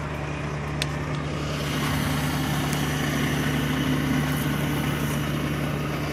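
A truck engine idling steadily, with a couple of light metallic clicks about a second in from the recovery rigging hardware being handled.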